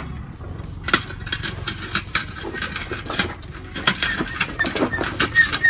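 Irregular metal clinks and knocks as a dirt bike is moved by hand, with a faint high squeak near the end.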